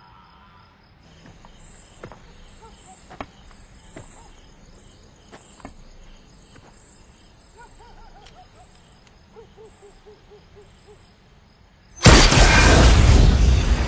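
Night ambience of insects chirping steadily, with a few faint sharp clicks and two short runs of falling notes. About twelve seconds in comes a sudden loud blast, followed by a loud rushing noise that slowly eases.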